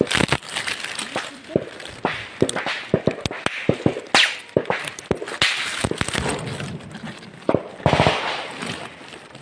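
Small-arms gunfire in an exchange of fire: irregular single shots and short strings of shots. A quick burst of several shots comes about eight seconds in.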